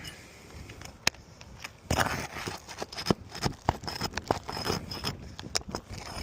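Scraping and irregular sharp clicks and taps from asphalt shingles and roofing tools being handled, growing busier about two seconds in.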